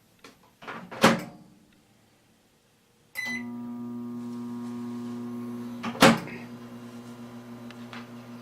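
Microwave oven door shut with a loud clack, then a short keypad beep about three seconds in and the oven starting up into a steady electrical hum. A second sharp knock comes about six seconds in while the hum carries on.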